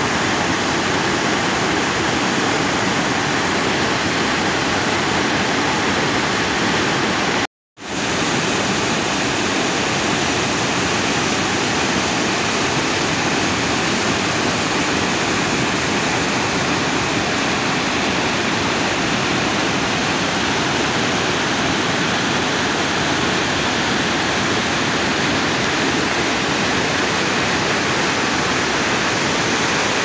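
A rain-swollen creek in flood rushing down a rocky cascade and rapids: a loud, steady rush of white water. About seven and a half seconds in, it cuts out into silence for a split second, then comes straight back.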